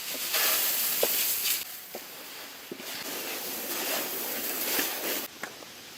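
Chicken legs frying in hot oil, giving a steady hissing sizzle. It swells soon after the start, eases for a moment, then swells again before dying down near the end.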